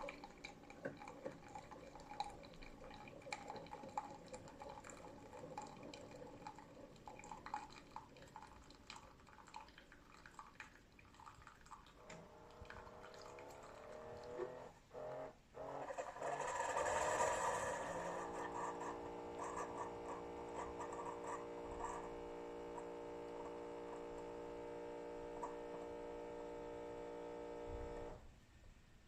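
Keurig K-Supreme Plus SMART pod coffee maker brewing: coffee drips and trickles into the cup, then a short hiss about two-thirds of the way through. The machine then gives a steady hum that stops suddenly about a second before the end, as the brew cycle finishes.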